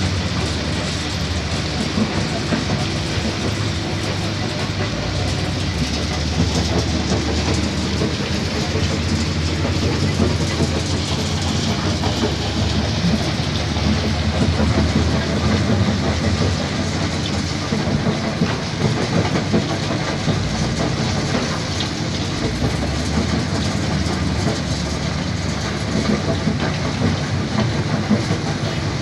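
Dump truck running steadily, a low diesel engine rumble under continuous rattling and knocking.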